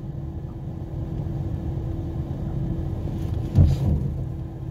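Car engine running, heard from inside the cabin as a steady low rumble with a faint hum, and a single low thump about three and a half seconds in.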